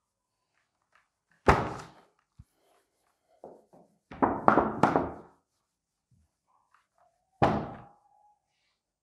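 Dull thuds against a whiteboard as it is wiped clean with a cloth: one about one and a half seconds in, a quick run of three or four around the middle, and one more near the end.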